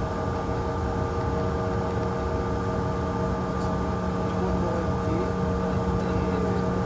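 Cabin noise of a Bombardier CRJ1000 taxiing: the rear-mounted GE CF34 turbofans' steady hum with several steady tones over a low rumble.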